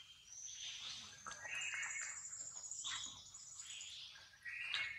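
Baby long-tailed macaque crying in a run of shrill, high-pitched squeals, a sign of its distress.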